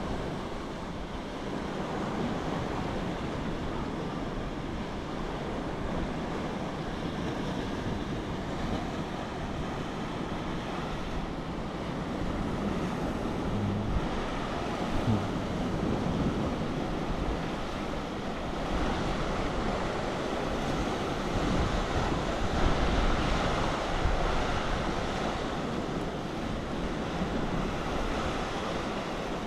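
Sea surf washing on the shore, a steady rushing that swells louder about two-thirds of the way through, with wind rumbling on the microphone.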